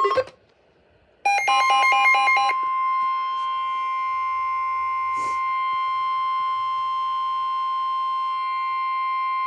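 NOAA Weather Radio warning alarm tone: about a second of rapid alternating electronic beeps, then one steady, loud tone held without a break. This tone signals that a warning bulletin, here a tornado warning, is about to be broadcast.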